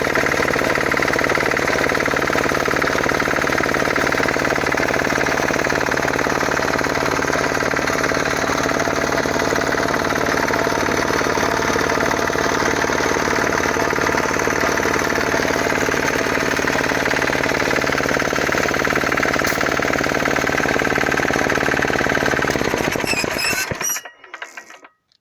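Small single-cylinder diesel engine from an old generator, belt-driving an air compressor pump, running steadily with a fast, hard knock. Near the end it falls away unevenly and stops.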